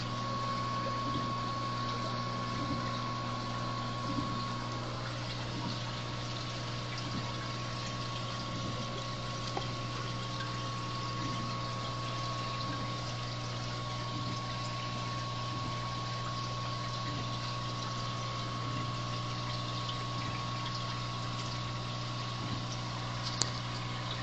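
Aquarium pump running with a steady low hum and the wash of moving water, with a single click near the end.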